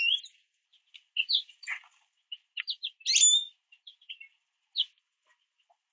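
Songbirds giving short chirps and call notes at irregular intervals, with a louder sweeping call about three seconds in.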